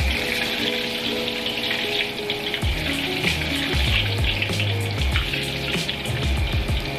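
Hot oil crackling and sizzling steadily in a wok as a crumb-coated ball of ice cream deep-fries, with oil ladled over it.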